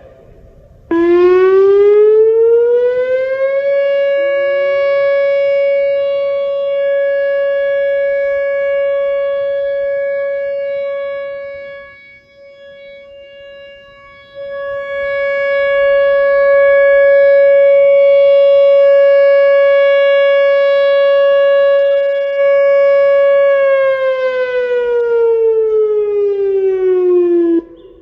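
Whelen WPS-2906 electronic outdoor warning siren sounding a test tone: it rises in pitch over about three seconds, holds one steady tone for about twenty seconds, then falls away and stops near the end. The loudness swells and fades slowly, dropping sharply for a couple of seconds about twelve seconds in.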